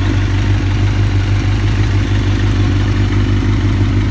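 Suzuki GSX-R1000 K1's inline-four engine idling steadily.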